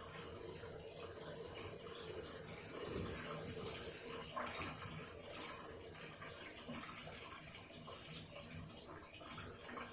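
Hitachi BeatWash BW-V80A washing machine with water running and swishing in its tub, a steady wet rush with a faint hum underneath.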